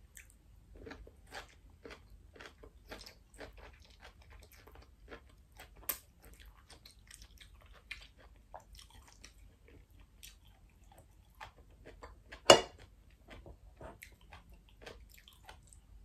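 A person chewing crisp stir-fried asparagus, a long run of small crunches and wet mouth sounds. One much louder sharp click comes about twelve and a half seconds in.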